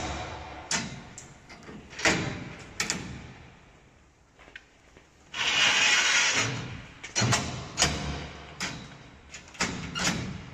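Stainless steel guard rails being pulled out and handled: a series of knocks and clanks, with a longer sliding sound lasting about a second and a half just past the middle.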